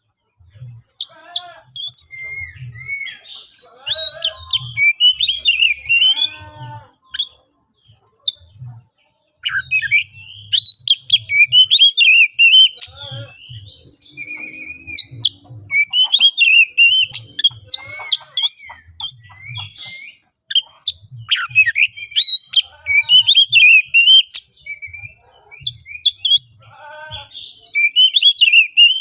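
Oriental magpie-robin (kacer) singing loudly in quick bursts of varied whistles, chatters and harsh notes with short pauses between them. This is the aggressive, fired-up challenge song of a bird in full fighting mood, the kind used to provoke other males into answering.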